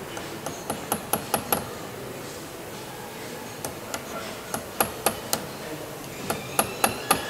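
Small hammer tapping on a steel punch held to the end of a Lancaster's rear-wheel oleo leg during its strip-down. The metallic taps come in three quick runs of four to six, with short pauses between.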